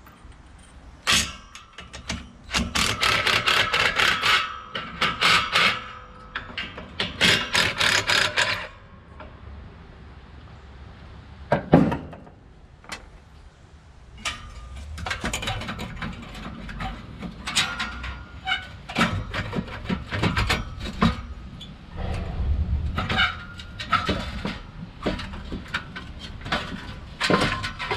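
Cordless drill-driver with a socket extension running in several bursts in the first few seconds, backing out the 13 mm bolts that hold the muffler to the mower engine. A sharp knock follows, and then scattered metallic clanks and rattles as the loosened muffler and exhaust pipe are worked free.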